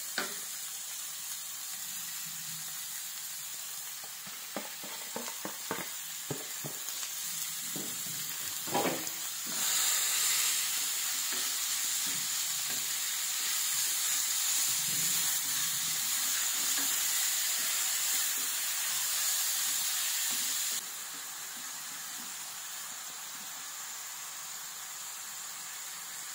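Ground meat sizzling in oil with chopped garlic and onion in a frying pan, broken up and stirred with a wooden spoon. Scrapes and taps of the spoon come in the first several seconds. The sizzle grows louder about ten seconds in and drops back suddenly about twenty seconds in.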